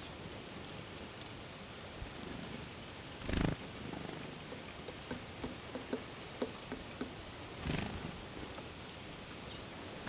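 Black-capped chickadee feeding from a hand: two short fluttering whooshes of its wings close by, about three and a half and eight seconds in, and a run of light clicks between them as it picks over the sunflower seeds in the palm, over a steady soft hiss.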